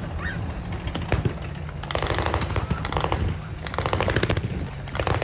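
An MG42 machine gun firing blanks in several rapid bursts, over the low running of vehicle engines.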